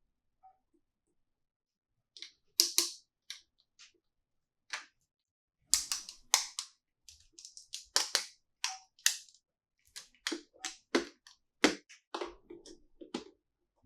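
Small plastic toy pieces being handled, giving irregular sharp clicks and taps against each other and a hard surface, in loose clusters with short pauses between them.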